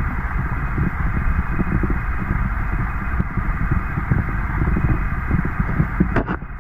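Steady, muffled rush of stream water heard through an underwater camera, with a dull low rumble. A few clicks come near the end.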